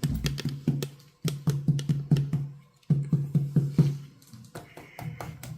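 Fingertips tapping quickly on a person's abdomen: abdominal percussion in four short runs of about seven taps a second, each tap giving a hollow, drum-like tone. This hollow ring is what is listened for as the sign of gas bloating in the bowel.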